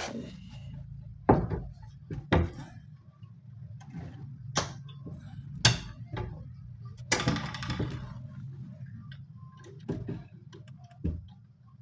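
Sharp knocks and clicks of a wooden cabinet door and its lock being pushed and tried, with a scraping rub about seven seconds in, as the lock is tested and does not yet catch. A steady low hum runs underneath.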